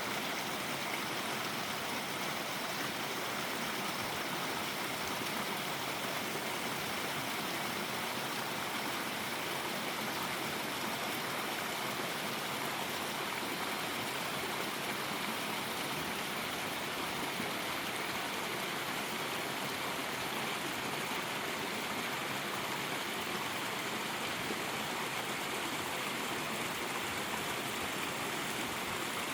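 Mountain valley stream, water flowing in a steady, even rush.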